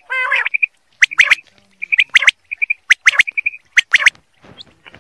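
A caged desi quail calling. A short harsh note at the start is followed by loud, sharp whistled 'whit-whit-whit' phrases, each stroke a quick rising note, given in groups of two or three about once a second, with soft short notes between the phrases.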